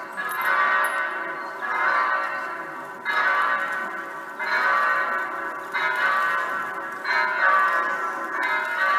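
Electronic simulated church bells sounding through loudspeakers in a steady peal: seven strikes about a second and a half apart, each ringing on into the next.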